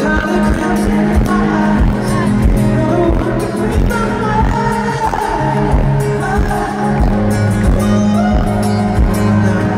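Live pop song heard through arena speakers from the crowd: a male singer with acoustic guitar over a steady kick-drum beat and sustained bass notes.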